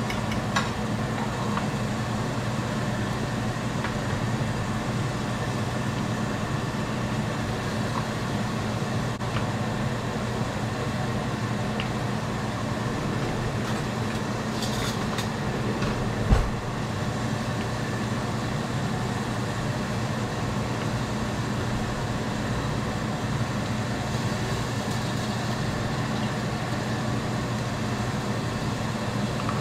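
Steady hum and rush of a running motor, with a brief click just after the start and a single knock about sixteen seconds in.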